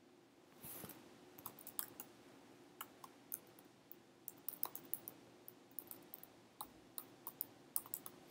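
Typing on a computer keyboard: quick, irregular key clicks as an email address is typed out.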